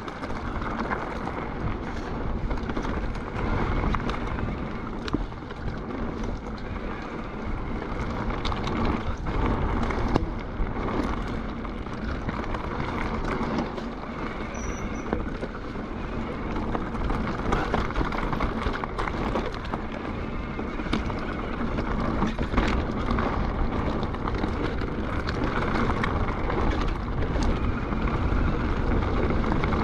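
Mountain bike ridden at speed down a loose gravel and stone singletrack: continuous tyre crunch and rumble over the stones, with frequent clicks and rattles from the bike.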